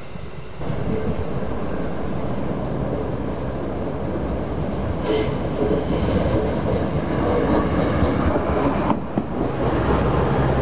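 Diesel multiple-unit train approaching and running past over the level crossing: engine and wheel-on-rail rumble that steps up under a second in and grows louder, with a brief high wheel squeal about five seconds in.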